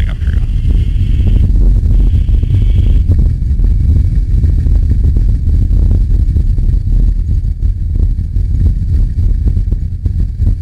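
Boeing C-17 Globemaster III's four Pratt & Whitney F117 turbofan engines running at high power: a loud, deep, crackling rumble, with a high whine heard twice in the first three seconds.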